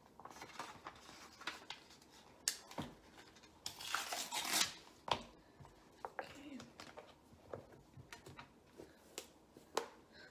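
Paper being handled: scattered small clicks and taps, with a rustling, tearing noise lasting about a second near the middle.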